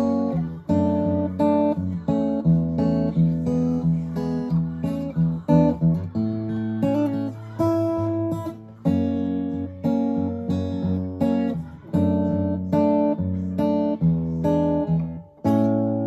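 Martin DRS-1 solid-sapele dreadnought acoustic guitar played unaccompanied: a steady run of strummed chords, about two strikes a second, with a new chord every few seconds and a short break near the end.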